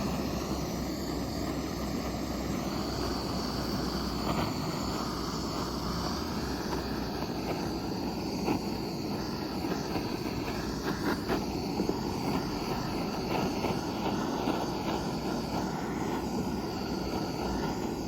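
A power tool's motor running steadily, with a few light clicks and ticks scattered through it.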